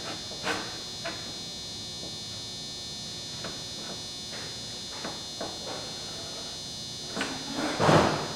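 Workshop handling noises: a few light clicks and taps, then a louder burst of rustling, scraping noise near the end, over a steady high-pitched electrical whine.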